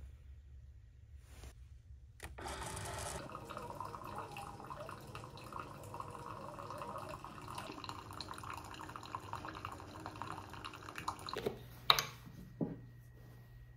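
Keurig single-serve coffee maker brewing: its pump running while coffee streams into a ceramic mug, starting about two seconds in and stopping suddenly after about nine seconds. Then two sharp clicks as the cap of a carton is twisted open.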